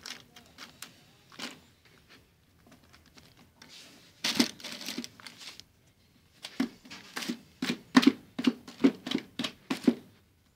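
Plastic bag crinkling as it is handled and pulled open. There is a burst of rustling about four seconds in, then a run of sharp crinkles, about three a second, in the last four seconds.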